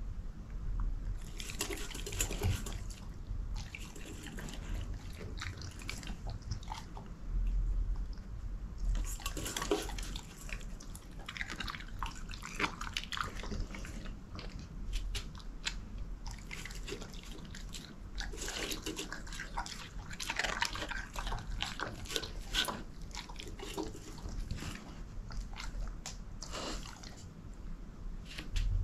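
A Belgian Shepherd Groenendael eating soft chicken, egg, liver and heart from a steel bowl: clicky chewing and biting in bursts, with short pauses between.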